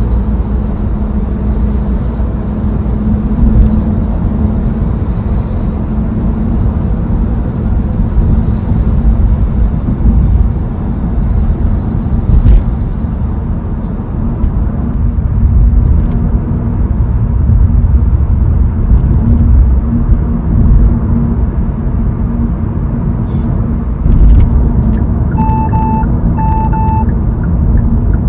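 Cabin noise of a Kia K3 on the move: a steady low road and engine rumble. Two short electronic beeps sound near the end.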